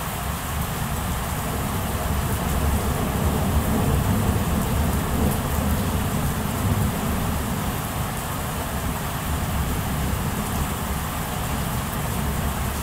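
Steady rain during a thunderstorm, with a low rumble of thunder that swells a couple of seconds in and eases off after the middle.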